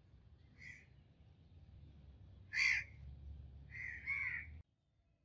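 A bird calling: four short, harsh calls, the loudest about two and a half seconds in and two close together near the end, over a low background rumble. The sound cuts off suddenly near the end.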